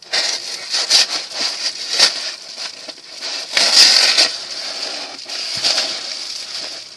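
A package being cut open with a small folding knife: irregular crackling, rustling and scraping of the packaging as it is cut and pulled apart, loudest about four seconds in.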